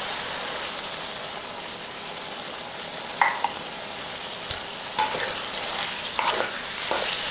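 Shrimp frying in hot oil in an electric wok as a cornstarch sauce thickens, a steady sizzle while being stirred, with about four short knocks against the wok.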